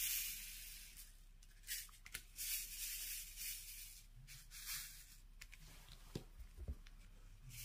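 Faint rustling and rubbing of hands and plastic on a diamond painting canvas, coming in several short, soft hissing bursts.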